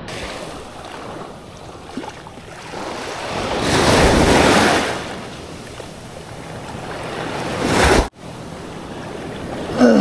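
Waves washing at the water's edge, mixed with wind buffeting the microphone. The noise swells around four seconds in, builds again towards eight seconds, then cuts off abruptly.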